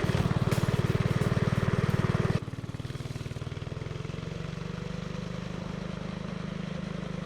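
Mini trike's small Honda single-cylinder engine running hard with a fast, even beat, then dropping suddenly about two and a half seconds in to a quieter, lower, steady run as the throttle comes off.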